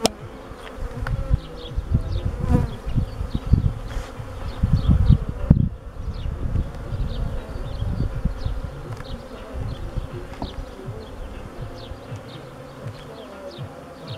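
Honeybees buzzing steadily around an open hive. Low rumbling bumps come and go over the first six seconds or so, then die down.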